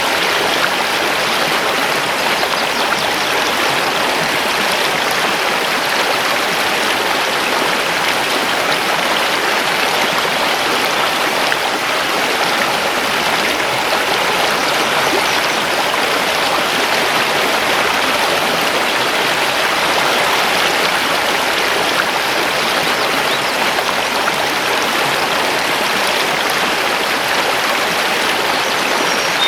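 Mountain river rushing over stones in a steady, even flow of water noise.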